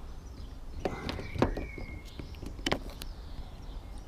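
Plastic interior door trim being pried and popped out of its clips: a few sharp clicks, the loudest about one and a half seconds in, with a short plastic squeak just after the first click.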